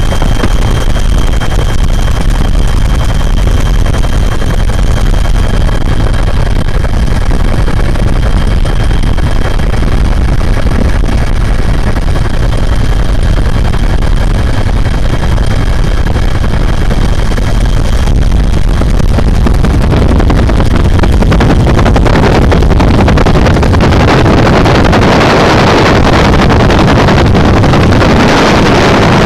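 Helicopter engine and rotor noise heard from aboard: a loud, steady drone with a thin high whine. About twenty seconds in, a broader hiss grows louder and the whine fades.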